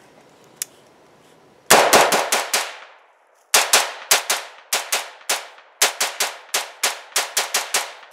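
AR-15 rifle in 5.56/.223 fired rapidly from the shoulder: a quick run of about five shots, then, after a short break, a steady string of shots at about three a second, each shot ringing off briefly.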